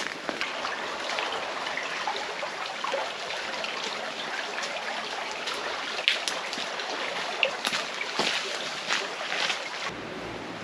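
Rain falling steadily, a hiss with irregular close drops ticking and splatting. A low hum comes in near the end.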